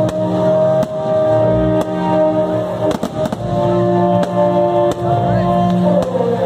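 Music plays steadily while aerial firework shells burst with sharp bangs, roughly one a second.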